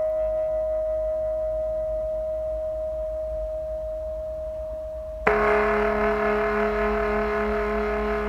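A sustained ringing musical tone slowly fading away. About five seconds in, a louder, lower ringing tone starts suddenly and holds.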